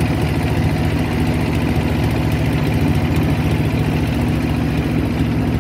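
Boat engine running steadily at an even speed, a low drone that holds its pitch.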